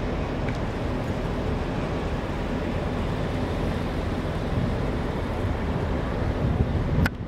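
Steady low rumbling outdoor noise with no distinct events, which drops out abruptly near the end.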